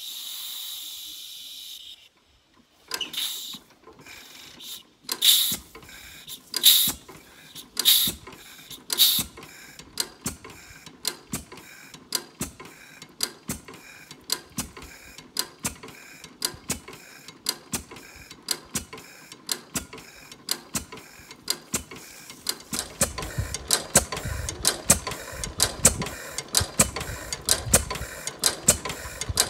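10 hp Fairbanks Morse single-cylinder stationary engine starting after being turned over by the flywheel: a short hiss, then a few loud firing bangs about a second apart as it catches. It then runs with a steady, rapid mechanical clatter of clicks and knocks, louder in the last few seconds.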